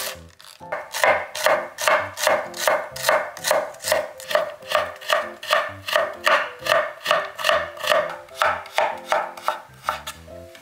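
Chef's knife chopping vegetables on a wooden cutting board in quick, even strokes, about three a second. It is slicing shredded cabbage, then cutting carrot into thin julienne strips.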